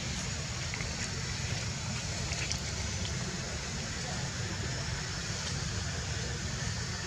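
Steady outdoor background noise: a low rumble under an even hiss, with a few faint ticks.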